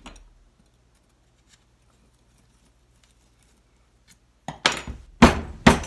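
Near silence, then about four and a half seconds in a quick run of four or five short, sharp hissing spurts from a hand-held plastic squeeze bottle being worked.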